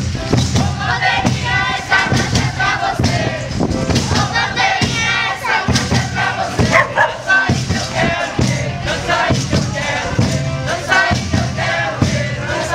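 A group of girls' voices singing a Catupé congado chant together while walking, over a steady beat of drums.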